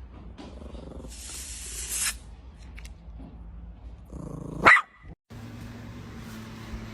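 A dog barks once, loud and sudden, a little past halfway through, after a stretch of quieter noise.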